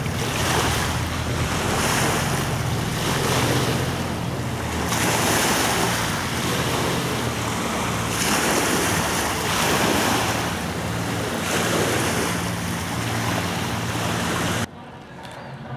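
Waves washing against the shore in surges every second or two, with wind buffeting the microphone and a low steady hum underneath. Near the end the sound cuts off suddenly to a much quieter background.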